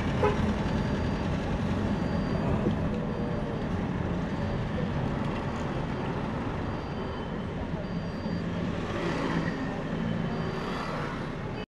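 Steady urban traffic noise, with vehicle engines running as a continuous low rumble.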